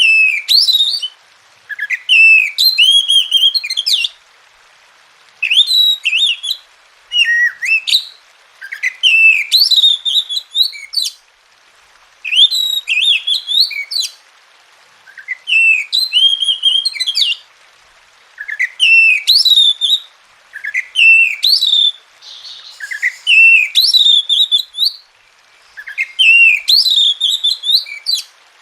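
Oriental magpie-robin (kacer) singing: about ten loud, varied whistled and chattering song phrases of a second or two each, with short pauses between them.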